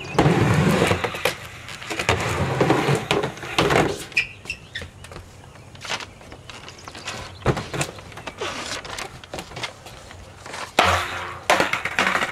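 Footsteps and knocks on wooden planks, irregular thuds and clatters, with loud stretches of rustling noise near the start and again near the end.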